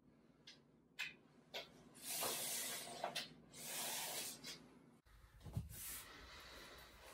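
Faint light clicks, then a long scraping hiss as a katana blade slides into its scabbard. A low hum comes in about five seconds in.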